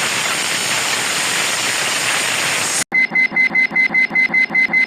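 Cartoon sound effects: a steady hiss of noise that cuts off suddenly almost three seconds in, then rapid electronic beeping at about five beeps a second, like an alarm clock.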